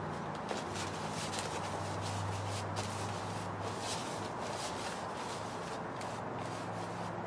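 Paintbrush swishing back and forth over a styrofoam ceiling tile in a quick run of short strokes, over a low steady hum.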